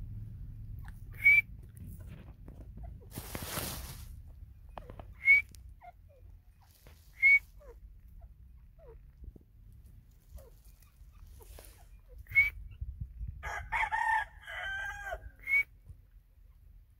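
White francolin (teetar) calling: five single short, sharp, high notes spaced a few seconds apart, with a burst of rougher, wavering calls near the end. A brief rush of noise comes about three seconds in.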